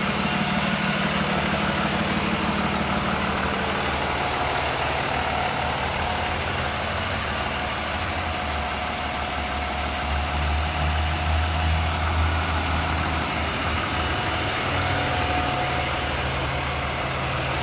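Cummins diesel engine of a Freightliner M2 tow truck idling steadily.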